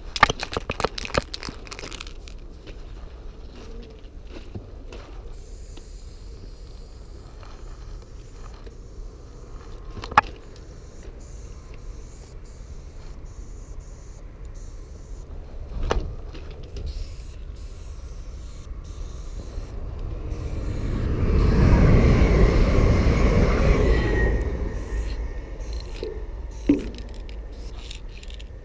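Aerosol spray paint cans spraying onto a train car's metal side in short hisses, with a quick run of clicks near the start and a few single knocks. About twenty seconds in, a louder rushing noise swells for a few seconds and fades.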